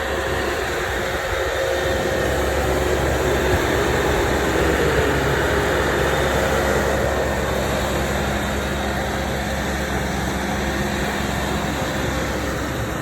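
An engine running steadily, a continuous mechanical drone with a low hum that swells slightly midway.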